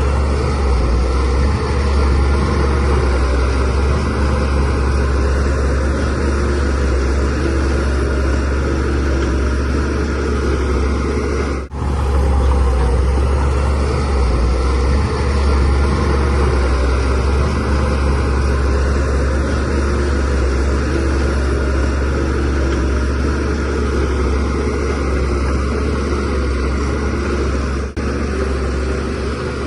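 Diesel engine of a DH17C3 bulldozer running steadily with a deep low rumble as the machine works, broken by two very short dropouts, about twelve seconds in and near the end.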